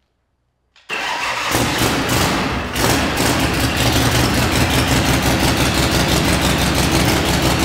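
Evolution Big Twin V-twin engine on a hardtail chopper, started for the first time after a full rewiring. About a second in, the electric starter cranks it over for roughly two seconds, then the engine catches and runs with an even, pulsing beat. The owner thinks it may still have some fuel issues to iron out.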